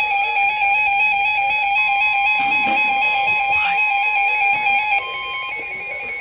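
Weather-radio alarm tones: a rapidly pulsing electronic beep, joined about two seconds in by a steady single-pitch alert tone (the NOAA Weather Radio 1050 Hz warning alarm). They signal that a warning is about to be read. The sound drops in level about five seconds in.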